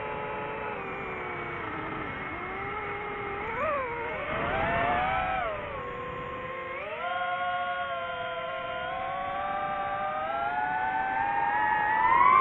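DJI FPV drone's motors and propellers whining, the pitch swooping up and down with the throttle. There is a louder surge about four to five seconds in, then the pitch climbs steadily toward the end.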